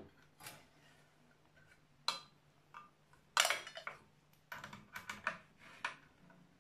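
Scattered clicks and light clinks of small metal and plastic parts being handled on a circular saw as its blade is fitted. The loudest comes about three and a half seconds in, followed by a quick run of clicks.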